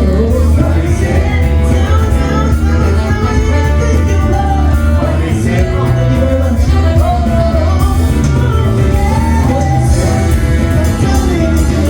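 A song: a voice singing over a full band backing with a strong, steady bass line.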